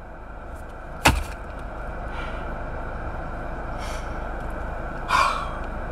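Steady low hum of a car running, heard from inside the cabin, with one sharp click about a second in and a brief soft noise near the end.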